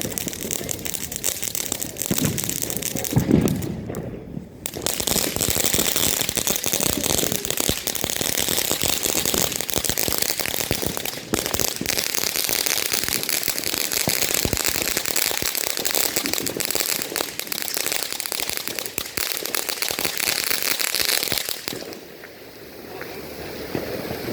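Consumer firework fountain spraying with a dense, continuous crackle and hiss that runs for about seventeen seconds, then cuts off near the end; a couple of dull thumps come in the first few seconds.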